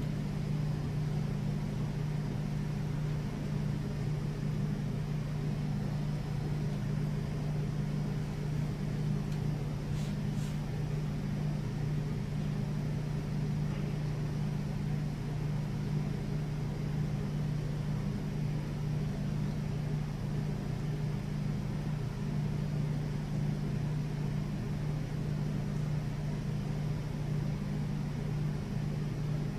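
Room tone of a large gymnasium held in silence: a steady low hum, with one faint click about ten seconds in.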